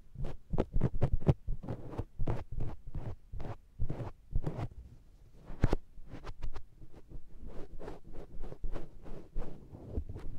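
Makeup sponge patted and pressed against the SR3D microphone's ears, giving close, muffled, sticky suction-like pats several times a second. A brief lull comes about five seconds in, then a sharp tap and more patting.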